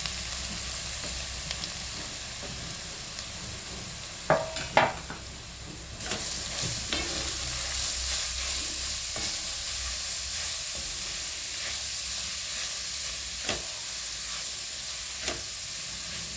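Grated carrots frying in hot ghee in a kadhai, a steady sizzle while they are stirred. A few sharp knocks about four to five seconds in and a couple more near the end; the sizzle grows louder from about six seconds in.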